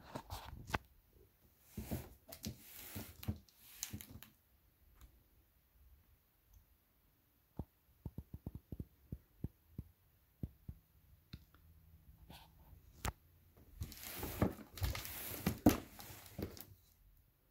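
Cardboard box being handled, with two spells of rustling and scraping and, between them, a run of quick irregular clicks.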